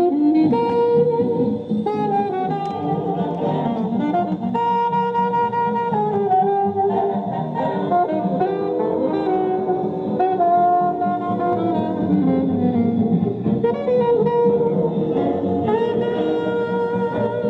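A vinyl record playing music through the built-in speakers of a 1958 Columbia 360-626 portable tube-amp phonograph, with held melody notes over an accompaniment.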